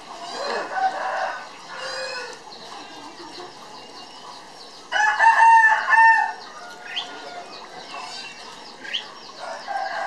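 Caged birds calling: small birds chirp throughout. About five seconds in comes a loud call of several short repeated notes lasting about a second, the loudest sound. More mid-pitched calls come near the start and near the end.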